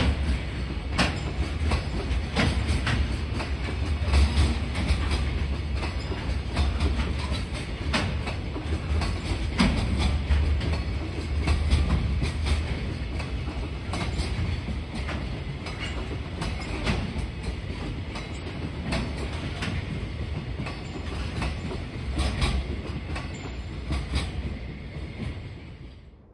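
Freight train's wagons rolling past: a steady low rumble with a quick run of wheel clacks over the rail joints. The sound drops away abruptly near the end.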